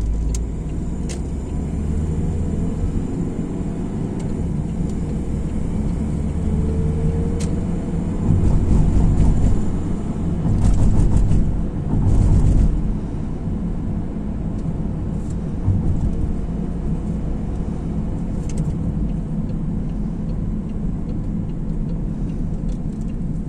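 Road and engine noise inside a moving car's cabin: a steady low rumble that swells louder three times around the middle.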